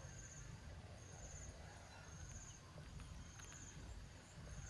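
Quiet open-air ambience: a short, high chirping trill, like an insect, repeating about once a second over a low wind rumble, with a few faint clicks a little past the middle.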